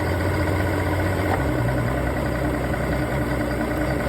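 Johnson 150 V6 two-stroke outboard idling. About a second and a half in it is shifted into gear and the low engine note changes, then it keeps idling in gear.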